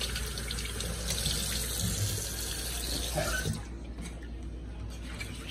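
Kitchen faucet running into a stainless steel sink while baby bella mushrooms are rinsed under the stream by hand; the water stops about three and a half seconds in.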